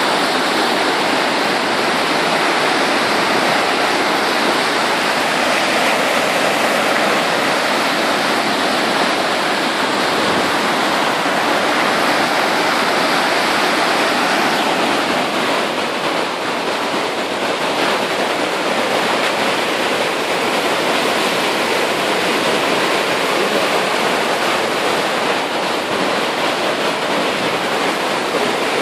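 A river in flood after heavy rain, its swollen, churning whitewater making a loud, steady rush of water.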